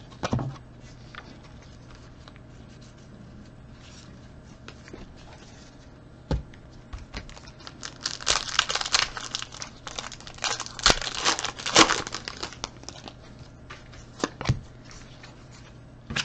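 A Panini Rookies & Stars trading-card pack wrapper being torn open and crinkled, a dense run of crackling from about eight to thirteen seconds in. A few single sharp knocks come before and after it.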